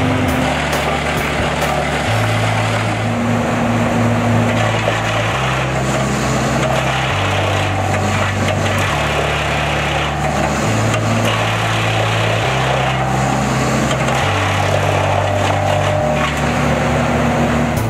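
Carlton 2512 disk chipper running and chipping a log, a steady engine-driven machine noise, over background music with a bass line that changes note every second or two.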